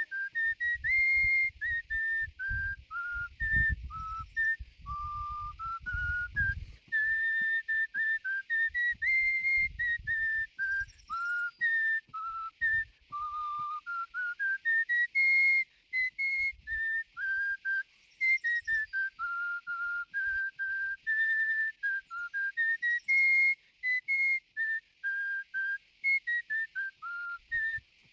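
A person whistling a melody by mouth: one clear tone stepping up and down between notes in phrases, with short pauses between them. A low rumble sits under the first several seconds.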